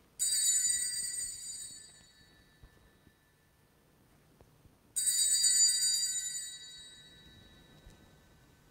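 Sanctus bell rung twice, about five seconds apart, each stroke a high ring that dies away over about two seconds, marking the elevation of the chalice at the consecration.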